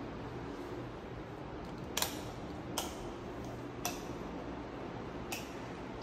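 Hard footsteps clicking on a polished marble tile floor, about five sharp steps at uneven spacing starting about two seconds in, over a steady low room hum.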